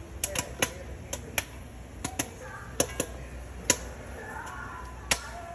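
Popcorn kernels popping: sharp, scattered pops at irregular intervals, about a dozen in all.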